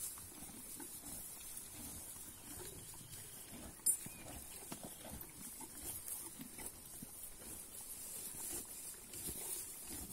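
Mule chewing hay close up, in irregular crunches, with one sharp click about four seconds in.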